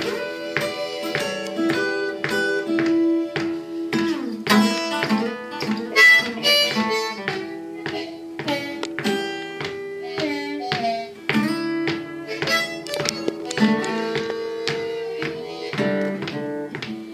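Blues played live on an acoustic guitar and a harmonica: the guitar is fingerpicked in a steady run of plucked notes while the harmonica holds long notes over it, with a note bent in pitch about ten seconds in.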